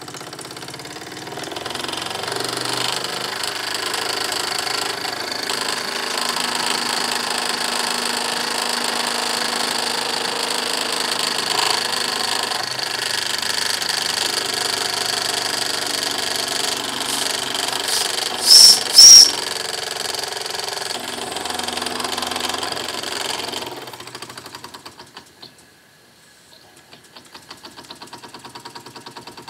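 Wilesco D6 model steam engine's single-acting oscillating cylinder running fast, a steady rattling chuff with its vibration carried through the workbench. About two-thirds of the way through, two short, loud blasts of its steam whistle. Near the end it slows sharply as a hand loads the flywheel, dropping to a slow, faint ticking.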